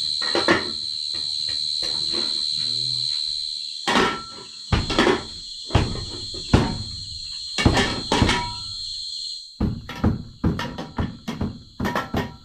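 Crickets trilling steadily at night, with a run of sharp knocks on a wooden block, as of chopping with a knife, coming about once a second and quickening to about three a second near the end.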